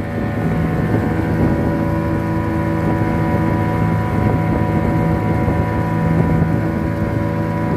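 A small fishing boat's motor running steadily at a constant speed as the boat heads back under way, with a steady drone.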